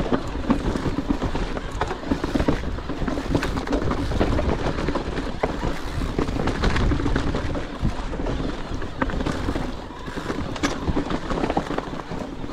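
Mountain bike rolling fast over rocky, gravelly singletrack: a steady rush of tyre and trail noise with frequent short knocks and rattles as the wheels hit rocks.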